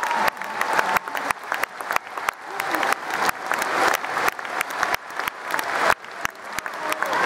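Arena audience applauding: a steady hiss of clapping with sharp, irregular individual claps close by.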